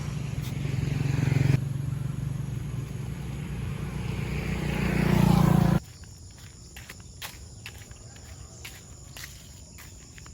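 A motor vehicle's engine running close by, swelling louder, then cut off abruptly about six seconds in. After that, much quieter outdoor night sounds with crickets and scattered clicks like footsteps.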